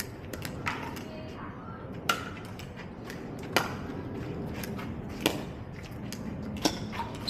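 Pickleball rally: sharp hits of paddles striking the perforated plastic ball, about one every one and a half seconds, some loud and close, others fainter.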